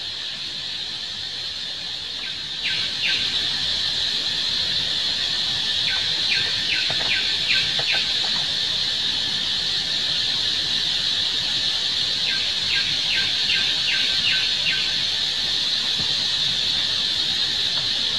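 Steady high-pitched drone of an insect chorus. Two runs of quick, short descending chirps come over it, about a third of the way in and again past the middle.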